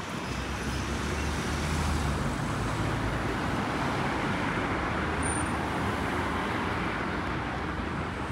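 Steady road traffic on a busy multi-lane city avenue: cars passing, their tyres and engines blending into one continuous noise, with a heavier low rumble a second or two in.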